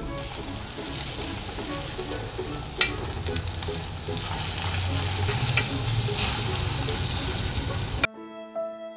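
Egg sizzling in a rectangular rolled-omelette pan as it is pushed and rolled with a wooden spatula, with a few sharp clicks along the way. About eight seconds in the sizzle cuts off abruptly and bowed-string music takes over.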